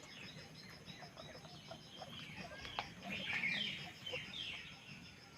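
Guinea pigs squeaking: a string of short high-pitched calls, loudest in a burst a little past halfway.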